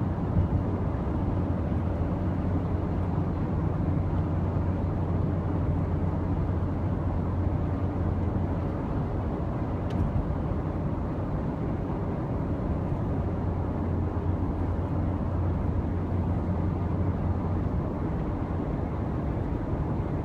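Steady road noise of a car driving, heard from inside the cabin: tyre and engine noise with a low hum.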